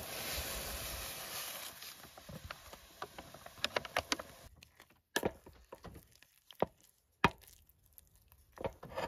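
Instant mashed potato flakes poured from a pouch into a pot of hot water: a light, crackly patter of many quick clicks, followed by a few separate sharp knocks. A steady hiss from the heating pot fades out over the first couple of seconds.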